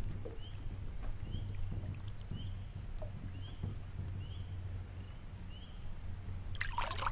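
Largemouth bass being released by hand over the side of a boat: light water sloshing around the hand and fish, then a louder splash near the end as the fish kicks away. Low wind rumble runs underneath.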